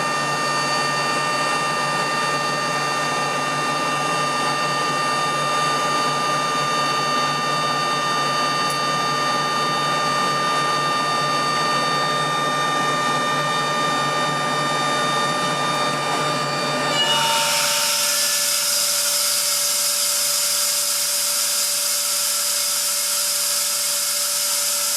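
Atlas Copco ZR 90 two-stage oil-free rotary screw air compressor running with a steady, many-toned whine. About two-thirds of the way through the whine drops away and a loud, steady hiss takes over: the compressor unloading and venting air.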